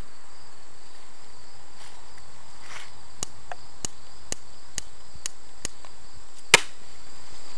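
Long-nosed utility lighter clicked repeatedly, about two clicks a second starting about three seconds in, with one sharper, louder click near the end. Crickets chirr steadily in the background.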